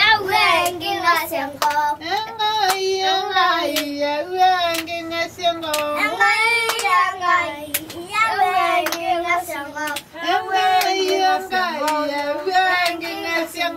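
A group of children singing a song together, with sharp claps keeping a fairly steady beat under the voices.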